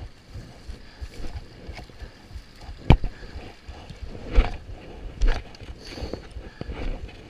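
Creek water trickling over rocks under a low, uneven rumble, with three sharp knocks about three, four and a half and five seconds in.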